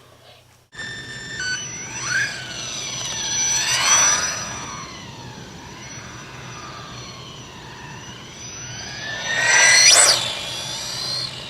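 Electric motor and drivetrain of a Team Associated RC18B2 1/18-scale buggy whining as it drives. The pitch rises and falls with speed changes, and it gets louder about four seconds in and again near the end.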